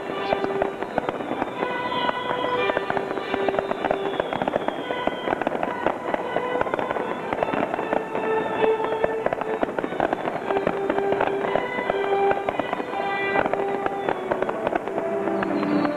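Fireworks going off in a dense, rapid crackle of small pops and bursts, with steady show music playing underneath.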